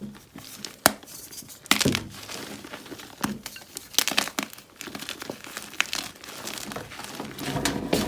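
Compressed gym chalk blocks bitten and chewed close to the microphone: sharp cracking snaps about a second in, near two seconds and at four seconds, between grainy, crumbly crunching.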